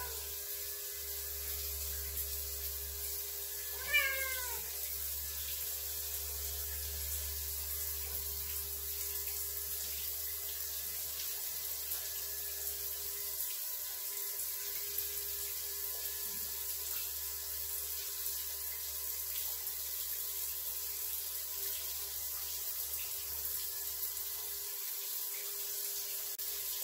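Shower water running in a steady hiss, with a single short meow from a Ragdoll cat about four seconds in.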